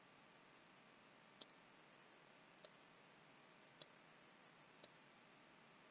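Four separate computer mouse-button clicks over a faint steady hiss.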